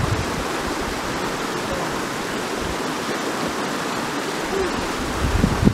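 Shallow mountain stream rushing over rocks and small rapids, a steady rush of water. Near the end, wind starts buffeting the microphone with irregular low rumbles.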